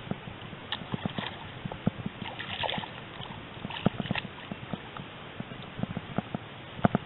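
Water splashing briefly about two and a half seconds in, among irregular light knocks.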